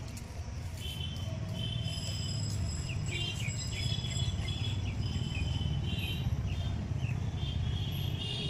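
Small birds chirping in quick, repeated short notes, with a thin steady high tone for a few seconds in the middle, over a steady low rumble.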